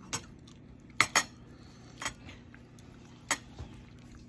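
A metal spoon clinking against a plate while scooping rice and curry sauce: five sharp clinks, two of them close together about a second in.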